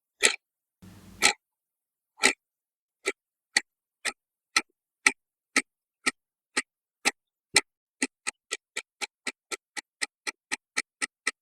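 Clock ticking sound effect, about two ticks a second, quickening to about four a second around eight seconds in, after two louder, fuller sounds near the start. It marks time passing while waiting for the hiccups to pass.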